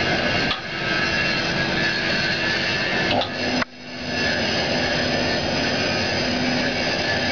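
Steady mechanical running noise of workshop machinery. It dips briefly about half a second in, then cuts out sharply at about three and a half seconds and builds back up within half a second.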